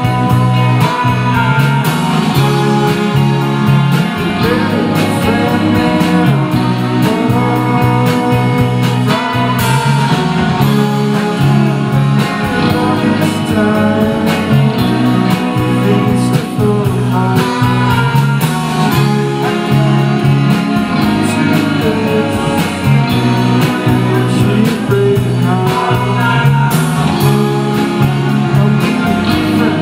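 Live band playing a song: electric guitars, keyboard and saxophone under a sung vocal, at a steady loudness throughout.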